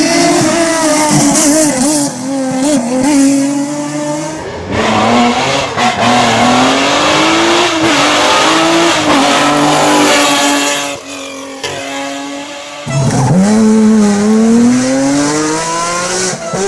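Lancia Stratos rally car's 2.4-litre Ferrari Dino V6 driven hard, revving up and dropping back with gear changes. It runs as several separate passages, with a break about four to five seconds in and a quieter dip shortly after ten seconds before it rises sharply again.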